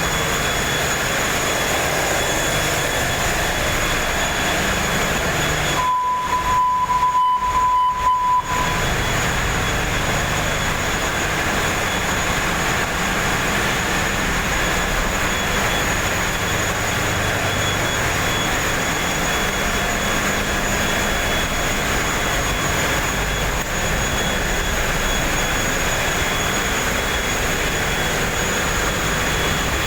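A ship's engine room with its diesel machinery running: a loud, unbroken drone with constant high whines over it. About six seconds in, a steady high tone sounds for about two and a half seconds.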